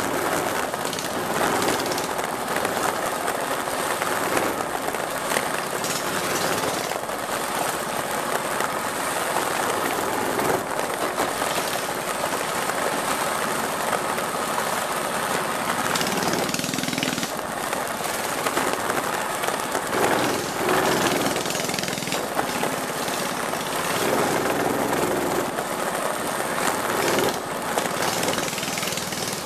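Predator single-cylinder four-stroke engines of minibikes running under throttle on a dirt track, under a steady rushing noise.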